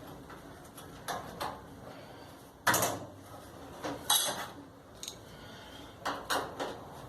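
Metal knocks and clatters from parts of a clothes dryer being handled and fitted during reassembly around the door hinge. There are about eight irregular knocks, the loudest a little under three seconds in.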